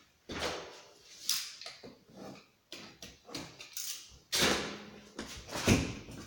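Packaging being handled: an irregular run of rustles, scrapes and knocks, the loudest burst a little over four seconds in.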